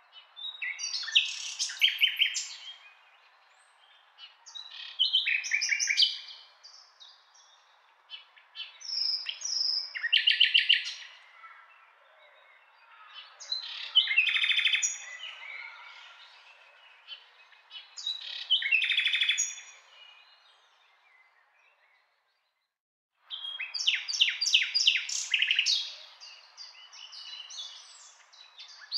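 A songbird singing short phrases of rapid trilled notes, one phrase every three to four seconds, over a faint steady background hiss. The sound cuts out completely for about a second partway through.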